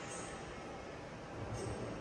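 Steady background rumble and hiss, with a slight swell in the low rumble about one and a half seconds in.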